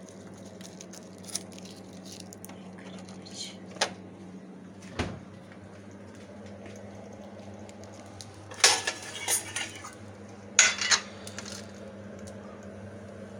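Steel kitchen utensils (pots, a lid, spoons) clinking and clattering: a few single clicks and knocks, then two short bursts of clatter about two thirds of the way through, over a steady low hum.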